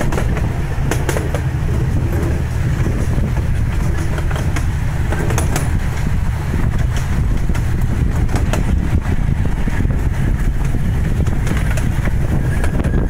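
Miniature park train running along its track, heard from an open passenger car: a steady low rumble with scattered clicks and knocks from the wheels and cars.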